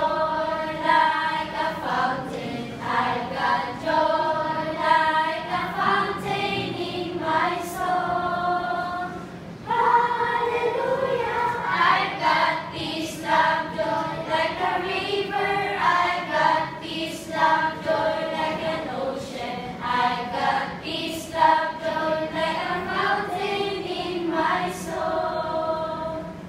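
Children's choir singing an action song together, with a brief pause about nine seconds in.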